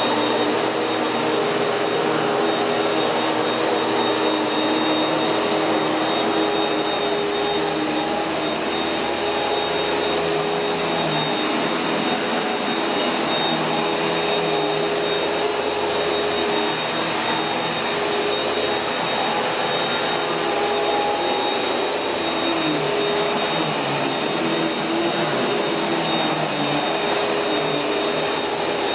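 Panasonic MC-UG471 bagged upright vacuum cleaner running steadily: a continuous rush of air with a high steady motor whine and lower tones that waver and come and go.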